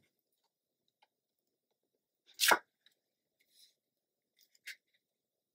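Black cardstock being handled and pressed down on a cutting mat: one sharp paper rustle about halfway through, then a faint rustle and a light tap near the end.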